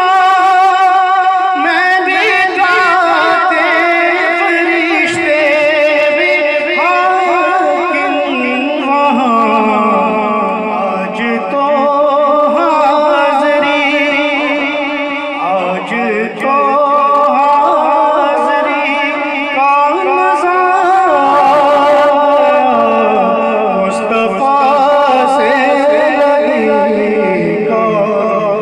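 A man singing a naat, an Urdu devotional song, into a microphone: long held notes whose pitch wavers and slides in ornamented runs.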